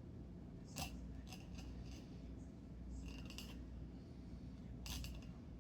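A blade cutting through a trout during filleting: several short, sharp scraping strokes a second or so apart.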